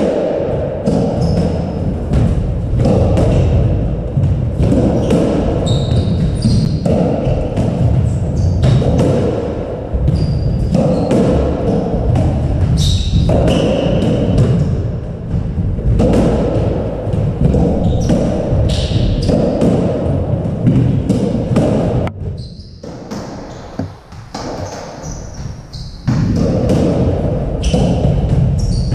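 Squash rally: the ball smacking off rackets and the walls, with shoes squeaking and feet thudding on the wooden court floor. The play falls quieter for a few seconds about two-thirds of the way through.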